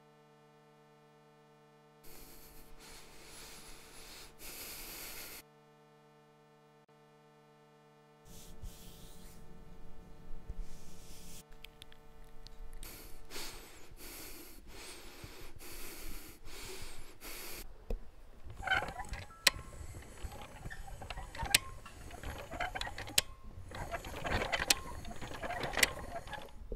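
Electronic soundtrack: a steady synthesizer drone of several held tones, broken by a few seconds of hiss about two seconds in. The drone then gives way to a crackling noise with sharp clicks that grows louder over the last several seconds.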